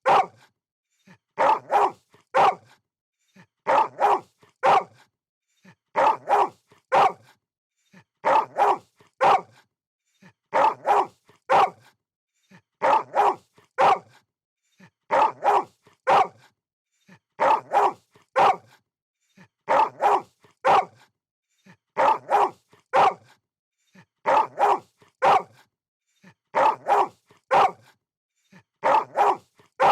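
Dog barking in short groups of about three barks, repeating evenly about every two seconds as a looped sound effect.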